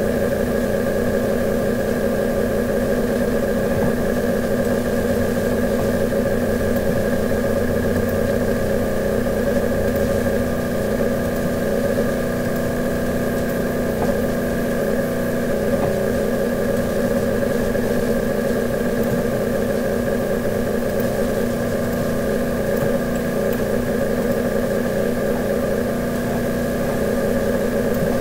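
A steady mechanical drone with several constant tones, unchanging throughout.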